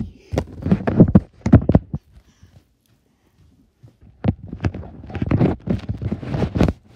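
Handling noise on a phone's microphone: knocks, thumps and rubbing as the phone is grabbed and pressed against red cloth, in two rough bursts with a short quiet spell between.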